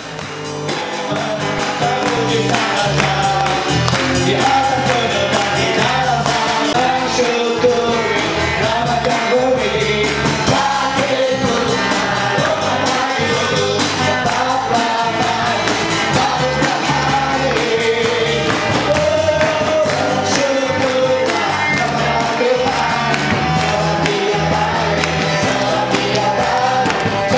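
A church congregation singing a lively worship song together to a steady rhythmic beat.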